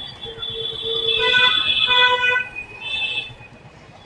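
Vehicle horns honking in street traffic: a long multi-tone blast lasting about two seconds, then a shorter honk about three seconds in.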